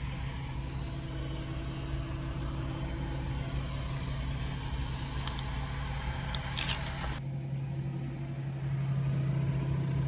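Fendt tractor's diesel engine running steadily with a low, even hum, heard beside the baler-wrapper it powers. A few sharp clicks come about two thirds through, and about seven seconds in the hiss drops away and the engine hum becomes fuller.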